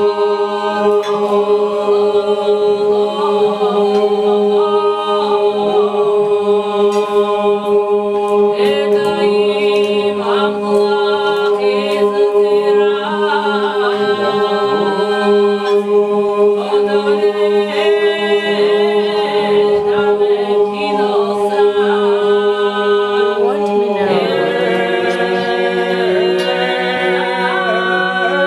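Georgian polyphonic singing: a group of men singing a cappella, a low note held steady underneath while the upper voices move above it. The held note shifts to a new pitch about 24 seconds in.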